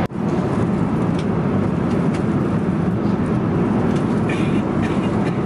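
Jet airliner cabin noise in flight: a low, steady rush.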